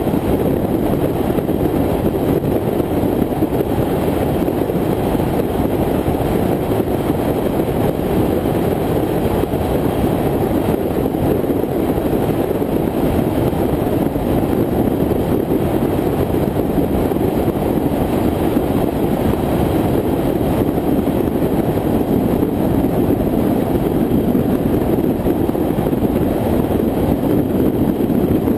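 Steady, muffled rush of wind and road noise from a BMW cruising at highway speed, picked up by a camera mounted outside the car over its bonnet.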